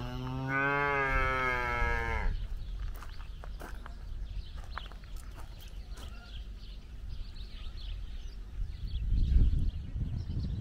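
A cow mooing: one long moo that ends abruptly about two seconds in. Later a low rumble with a few faint clicks, loudest near the end.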